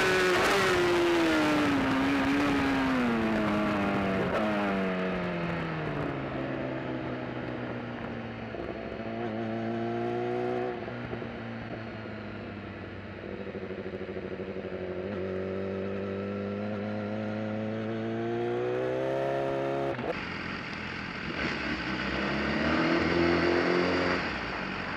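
Race superbike engine heard from on board, its pitch falling steadily over the first several seconds as the bike slows from speed, with wind noise fading out. It then runs at low revs with a couple of small blips, and its revs rise briefly near the end.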